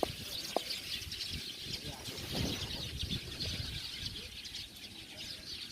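Dense chorus of many small birds twittering without pause, hundreds of overlapping high chirps, with a faint low rumble beneath.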